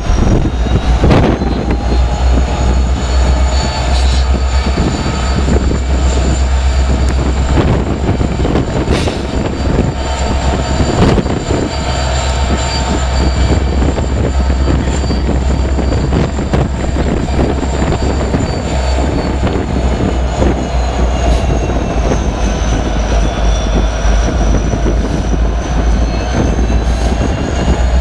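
Several Norfolk Southern diesel-electric freight locomotives rolling slowly past close by, with a loud, steady low engine rumble. Over it runs a steady high-pitched whine that dips a little in pitch near the end, and there are a few sharp clicks.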